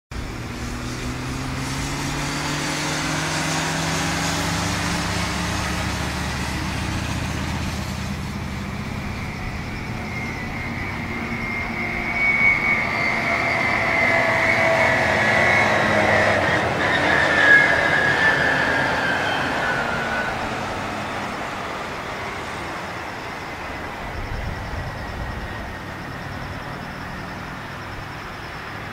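Boeing 767-300ER's jet engines as the airliner comes in to land, the roar building to its loudest about halfway with a high engine whine, then fading as it moves away.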